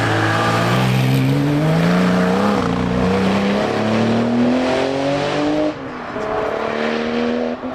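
Hillclimb race car engine revving hard under acceleration, its pitch climbing, dropping back at each gear change and climbing again. The sound falls away suddenly a little after halfway, then the engine climbs again.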